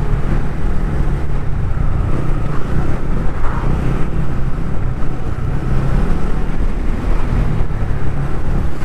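TVS Ronin 225's single-cylinder engine running steadily while riding, with road and wind noise.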